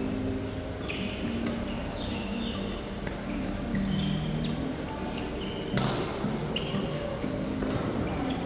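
Badminton doubles rally: rackets striking the shuttlecock with sharp cracks every second or so, the loudest about six seconds in, and court shoes squeaking on the floor between shots.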